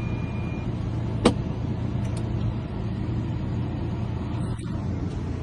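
Chevy Express van's engine running at a steady idle, with one sharp click about a second in and a couple of faint ticks shortly after, as the newly cut key is worked in the ignition.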